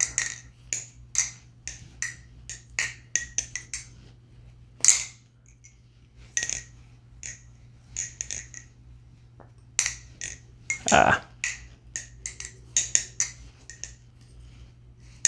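Metallic clicks and clacks of a MachineWise Mayrn Lite balisong being flipped, its handles snapping open and closed, in irregular runs of quick clicks. A heavier, duller knock comes about eleven seconds in.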